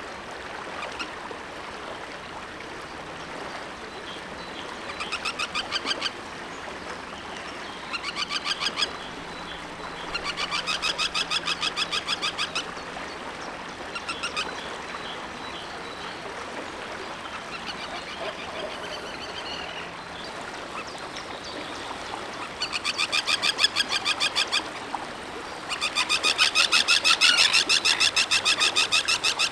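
Common tern giving bouts of rapid, harsh chattering calls, five runs of fast repeated notes, the longest and loudest near the end.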